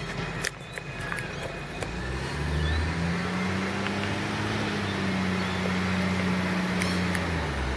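Diesel engine of an Iveco side-loader garbage truck as it approaches. The engine gets louder and rises in pitch about two seconds in as it accelerates, holds a steady note, then drops in pitch near the end as it eases off.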